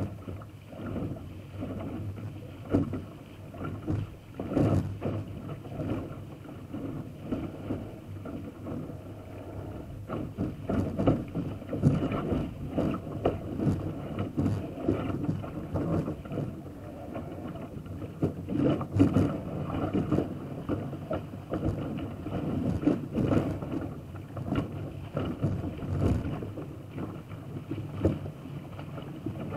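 Water rushing and splashing along the hull of a small single-handed sailing dinghy moving fast under sail, with waves knocking irregularly against the bow.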